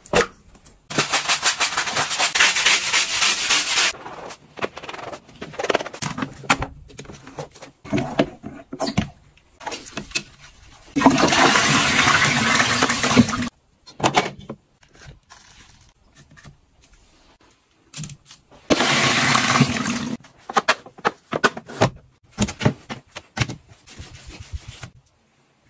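A string of short household cleaning sounds: three longer bursts of rushing noise with scattered knocks and clicks between them. The loudest comes about eleven seconds in and lasts two or three seconds, as a toilet bowl is flushed and scrubbed with a toilet brush.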